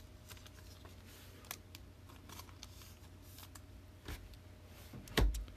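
Sports trading cards handled on a tabletop: soft sliding and light clicks of card stock, with one louder knock against the table near the end.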